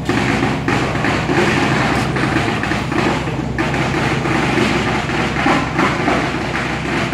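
Cross-river ferry's engine running steadily at the pier as the boat fills and gets ready to leave: a steady low hum with a rougher rushing noise over it that swells and dips.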